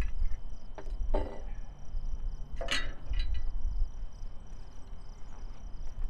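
Scattered knocks and one louder clank about three seconds in, from parts and tools being handled on a band sawmill during a blade change. Insects chirp steadily in the background.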